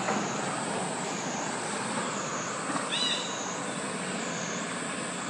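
Cicadas droning steadily, high-pitched, swelling and fading about once a second. A short high chirp comes about three seconds in.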